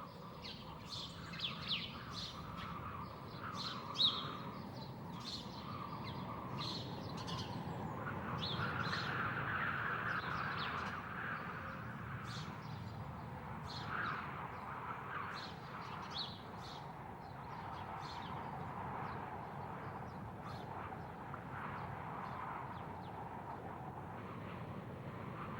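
Birds chirping and calling in many short, quick notes over a steady background noise that swells for a few seconds near the middle.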